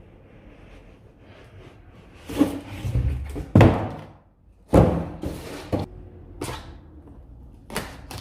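Cardboard laptop box and its packaging being opened and handled, with about half a dozen sharp knocks and thuds between the handling noises.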